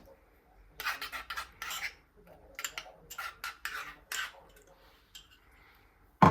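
Kitchen utensils clinking and scraping against dishes in clusters of short, sharp strokes, then quieter scraping, then one loud knock just before the end.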